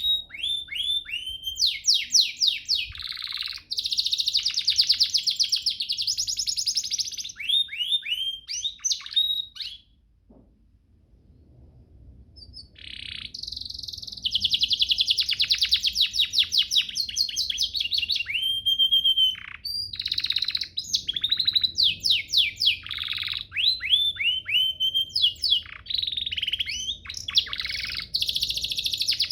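Domestic canary singing a long song of fast rolling trills and series of quick falling whistled notes. The song breaks off for about two seconds around ten seconds in, then resumes.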